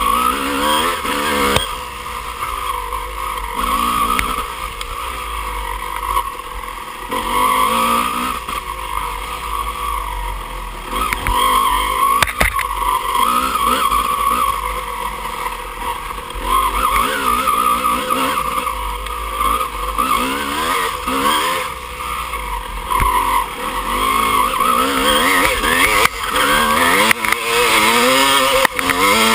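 Dirt bike engine revving up and down over and over as it is ridden hard through rough off-road terrain, with the pitch rising and falling every second or two. A few sharp knocks from the bike over bumps, the clearest about twelve seconds in.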